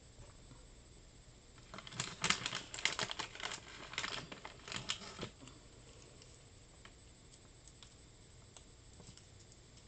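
A quick run of sharp clicks and taps lasting about three seconds, then a few scattered single clicks.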